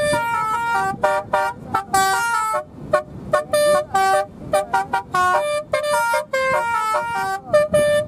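Telolet horn, a vehicle's multi-tone musical horn run by an electronic module, playing a quick tune of short stepped notes in phrases with brief breaks between them.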